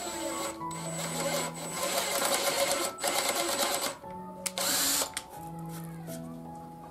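Cordless driver running in two bursts as it drives a screw into a wooden frame: a rapid rattling run of a few seconds, then a short loud burst about two-thirds of the way in. Background music plays throughout.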